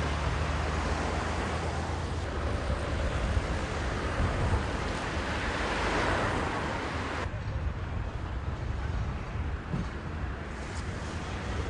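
Wind rumbling on the microphone over a steady rushing noise, which swells about six seconds in and then drops suddenly to a quieter hiss a second later.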